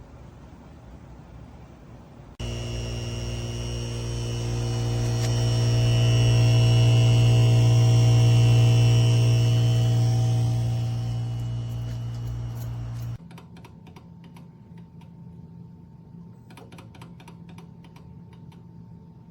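Steady low electrical hum with many overtones. It starts suddenly a couple of seconds in, swells louder, eases back and cuts off abruptly after about ten seconds. A few faint clicks follow near the end.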